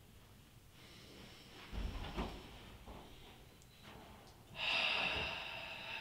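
A group of people taking a deep breath together: a long breath in, then a louder breath out starting about four and a half seconds in.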